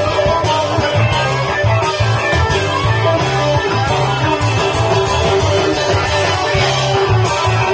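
Live rock band playing an instrumental passage: electric guitar over bass and drums, with no singing.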